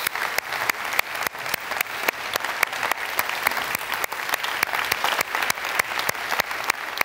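Congregation applauding: a dense, even patter of many hands clapping, with loud, sharp single claps standing out about three times a second.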